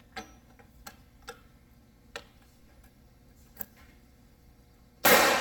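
A few light, sharp clicks as the breech of the pressure-test receiver is handled and closed. Then, about five seconds in, a single loud shot from a 9mm Luger Remington Golden Saber 124-grain hollow point fired in the pressure-test barrel, with a short echoing tail.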